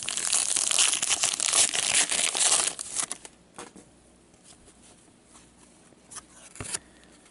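Trading-card pack wrapper being torn open and crinkled for about three seconds, followed by softer handling of the cards with a couple of light clicks near the end.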